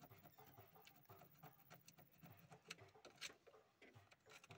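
Near silence, with faint scattered clicks and taps of the metal starter motor being handled into place.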